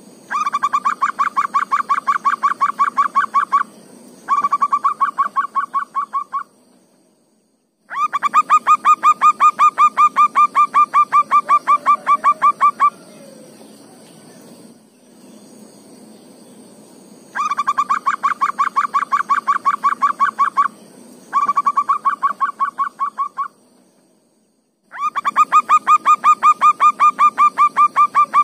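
Zebra dove (perkutut) singing: bursts of rapid, evenly repeated cooing notes, each burst lasting three to five seconds, with short pauses between. A steady high insect buzz runs underneath.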